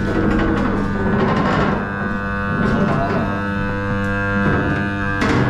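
A steady, unchanging low drone with a stack of overtones, typical of a running machine motor, over scuffing and knocking.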